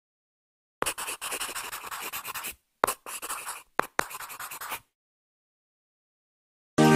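Pen scribbling on paper in three bursts of scratchy strokes, each opening with a sharp tick, over about four seconds, then stopping.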